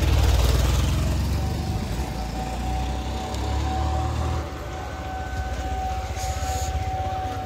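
Wind buffeting the phone's microphone while walking outdoors: a fluttering low rumble, loudest in the first second. A faint steady tone joins about a second in.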